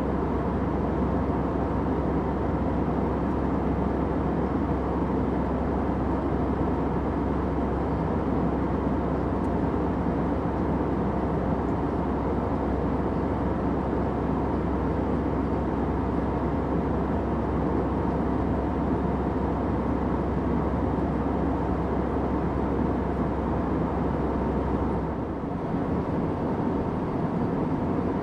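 Steady airplane cabin drone: an even rush of engine and airflow noise, heaviest in the low and middle range. Near the end it dips briefly and the deep hum underneath shifts.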